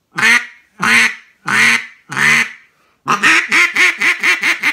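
Duck call made of black walnut with an ash barrel, blown by mouth: four long drawn-out quacks, then from about three seconds in a fast run of short quacks. The softer black walnut gives it a softer, raspier tone.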